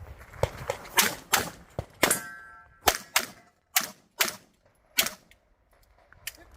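About nine pistol shots from a 1911-type handgun, fired in quick uneven pairs, with a steel target plate ringing briefly after a hit about two seconds in.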